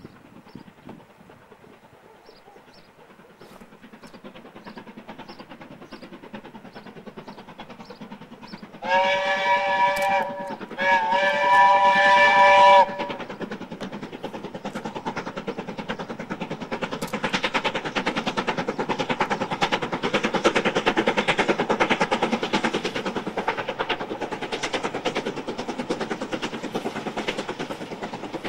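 Steam locomotive 70000 Britannia, a BR Standard two-cylinder Pacific, passing with its train. Its whistle sounds two loud blasts about nine seconds in, the second one longer. Its exhaust beats then come quick and steady as it works hard.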